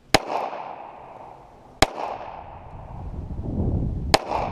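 Three gunshots from a .38 revolver, about two seconds apart, each followed by an echo rolling away. A low rumble builds up in the second half.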